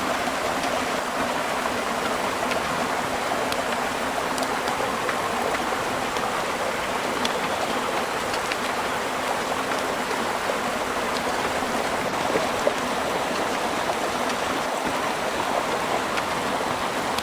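Steady rain falling: an even rushing hiss with scattered sharp ticks of single drops.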